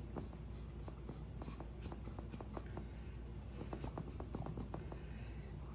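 A paintbrush dabbing and stroking on a stretched canvas: a run of short, irregular taps and scratches, thickest about four seconds in.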